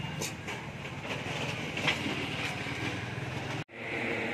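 A motor vehicle engine running steadily in street noise, with a few short clicks.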